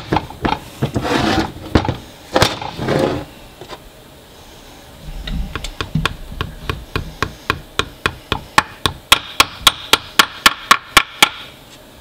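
A hammer tapping a new axle seal into the side bearing cap of a Subaru R180 rear differential: a rapid, even run of sharp metal taps, about four a second, growing louder toward the end. It follows a few seconds of rubbing and handling noise as the seal is pressed into place by hand.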